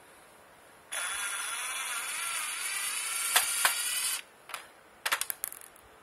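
Plastic housing of a Daewoo microwave oven's control panel scraping across a tiled floor: a wavering squeal lasting about three seconds. A few sharp clicks and knocks follow as the panel is handled.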